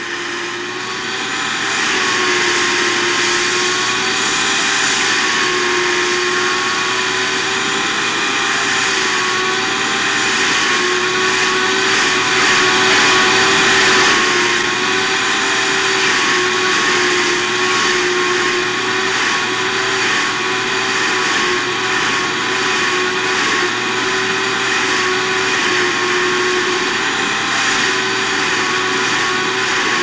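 Vacuum cleaner running steadily: a constant motor whine whose pitch wavers slightly, over a steady hiss of rushing air. It grows louder over the first couple of seconds, then holds.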